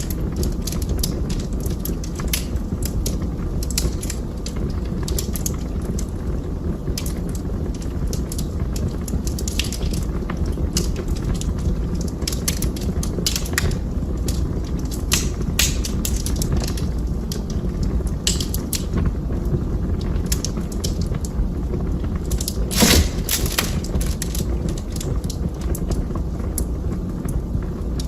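Wood fire burning in a fireplace: a steady low rumble of flames with irregular crackles and snaps, and one louder pop about three-quarters of the way through.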